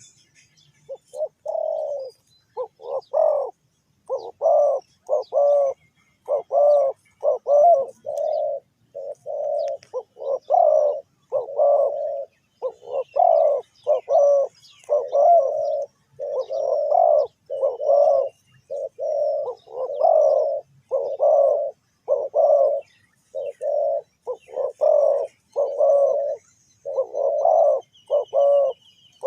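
Spotted dove cooing over and over in short phrases of two to four hollow notes, one phrase after another with hardly a gap.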